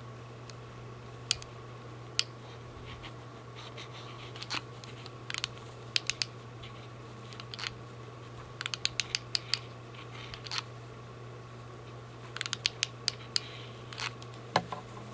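Irregular small clicks and scratches of hand crafting work on a paper-towel mask as its filter is glued in. They come in clusters around the middle and near the end, over a steady low hum.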